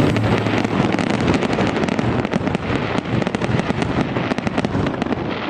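Dense, continuous crackling and popping, many sharp cracks a second with low thuds among them.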